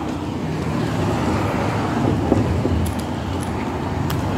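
Steady low rumble of road traffic on a city street, with a few light clicks near the end.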